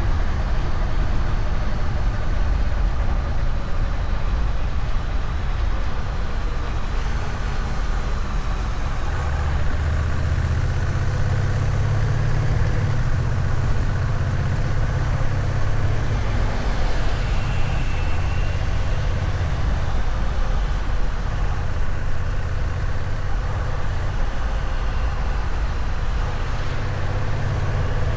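Honda Rebel 1100 DCT's parallel-twin engine running steadily through its stock exhaust at a constant 60 km/h on cruise control, with road noise.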